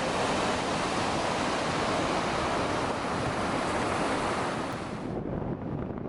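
Steady rushing noise of the big Gullfoss waterfall, mixed with wind buffeting the microphone. About five seconds in, the rushing drops away sharply and a lower, rougher wind noise is left.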